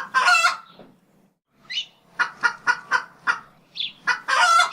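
Farm poultry calling: a run of quick, short, pitched notes, then a longer, louder call near the end.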